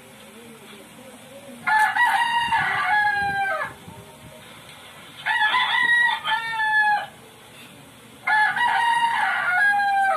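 A rooster crowing three times, each crow about two seconds long and ending with a falling note.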